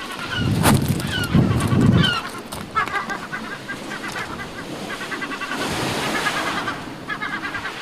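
A flock of waterbirds calling: short calls that slide in pitch over the first two seconds, then a fast, continuous run of repeated short calls. Low rumbles are loudest in the first two seconds.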